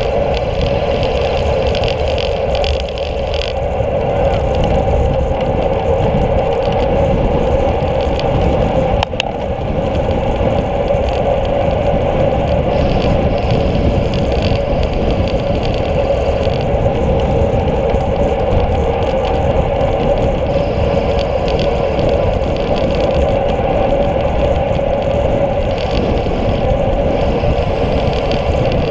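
Steady wind rush and road rumble from a road bike riding on asphalt, heard through a handlebar-mounted camera's microphone. One brief click about nine seconds in.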